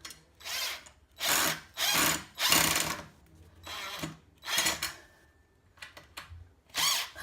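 Power drill/driver running in several short bursts, driving screws that fix blind brackets into plugged holes in the wall.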